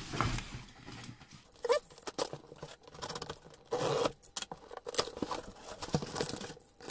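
Cardboard shipping box being opened by hand: irregular scraping and scratching at the packing tape, tape tearing and cardboard flaps rubbing, with scattered knocks as the box is turned and handled.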